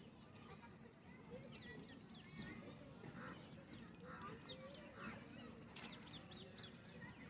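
Faint outdoor ambience of many birds chirping and calling in the trees, short scattered calls throughout, with a single brief click about six seconds in.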